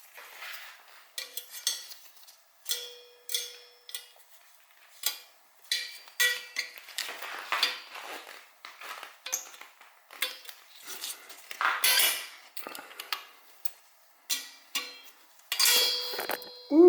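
Metal tools and parts clinking and knocking during hands-on disassembly of a motorcycle, in short irregular knocks, some with a brief metallic ring. A louder clatter comes near the end.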